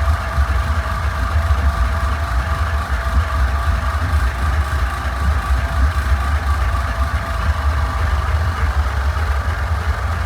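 Lawnmower engine running at a steady speed: an even low rumble with a steady hum above it, no revving or change.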